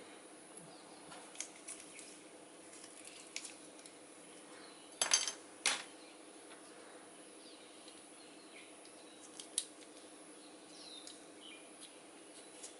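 Plastic model kit parts being handled and pressed together: scattered small clicks and taps, the two loudest close together about five seconds in, over a faint steady hum.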